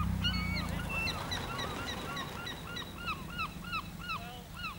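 A car passes, its engine and tyre rumble loudest at the start and fading away within about a second. Birds call throughout, short rising-and-falling calls repeated about three times a second toward the end.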